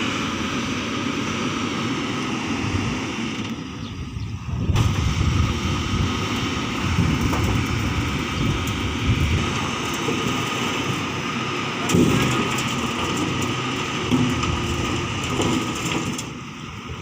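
JCB 3DX backhoe loader's diesel engine running under working load, a heavy low rumble with scattered knocks, dipping briefly about four seconds in.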